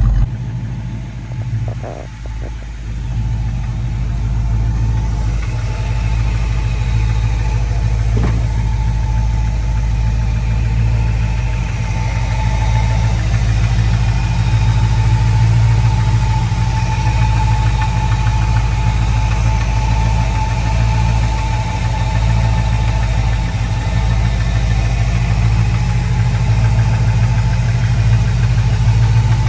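Custom 1956 Ford F100 pickup's engine idling steadily, heard close up at the open engine bay.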